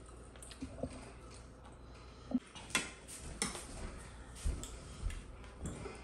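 Scattered light clinks and knocks of dishes and eating utensils, about eight separate hits spread over a few seconds, the sharpest near the middle.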